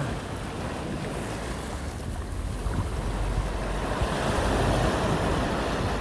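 Sea waves breaking and washing up the beach, the surf swelling louder about two-thirds of the way through. A low wind rumble on the microphone runs underneath.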